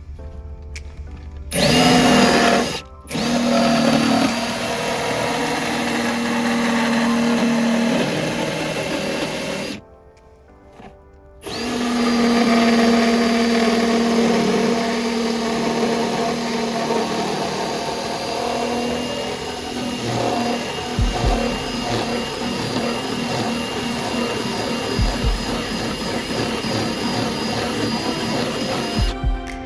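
Small electric motor running steadily in long stretches: it starts about two seconds in, drops out briefly, runs until near the ten-second mark, pauses for a second or two, then runs again for most of the rest. A few dull low thumps come in its second half.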